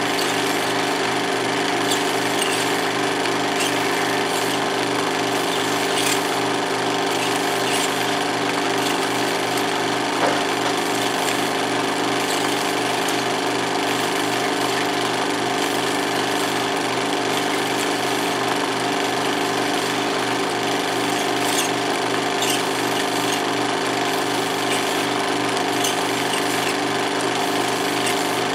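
16mm film projector running with a steady, rapid mechanical clatter, with a few faint clicks from the film passing through.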